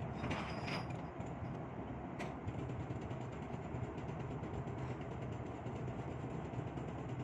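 Steady low rumble of idling engines, with a sharp click about two seconds in.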